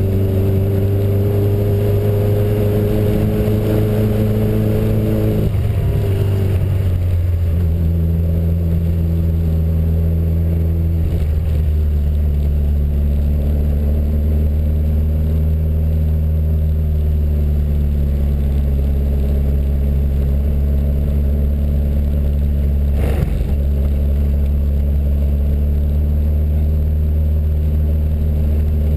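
Reliant Rialto's small four-cylinder engine pulling at low speed, heard from inside the car: its note climbs, then drops at a gear change about five seconds in, with another change about eleven seconds in. A single knock sounds a little past twenty-three seconds.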